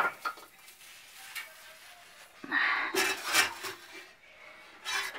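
Light kitchen knocks and clatter as fire-roasted tomatoes are handled on a metal griddle and moved into a bowl. There is a sharp knock at the start and a cluster of clattering strikes about three seconds in.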